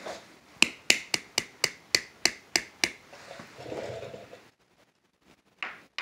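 Metal case of a Zippo hand warmer, lid on, knocked upside down against a hard surface: about nine quick sharp knocks, three or four a second, to bring the fuel-soaked cotton wadding back up to the top after filling. Some softer handling noise follows.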